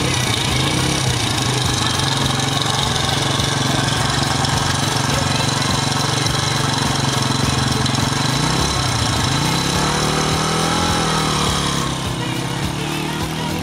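Small dirt bike engine running steadily at idle; about nine seconds in its pitch dips and then rises as it is revved, and it gets a little quieter near the end.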